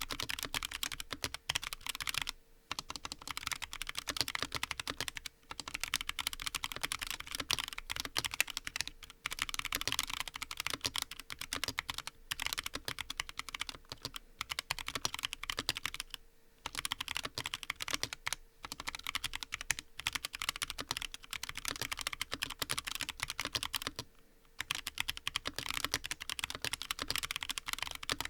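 Continuous fast typing on a Frusta Fundamental mechanical keyboard: a top-mount board with a brass plate and Krytox-lubed Huano White Blue switches, the keystrokes making a dense run of clacks. A few brief pauses break the typing.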